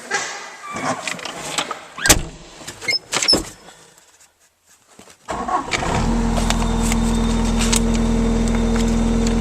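A few clicks and knocks from handling the cab, then about five seconds in the Bobcat S185's turbo Kubota diesel cranks briefly, catches and settles into a steady idle.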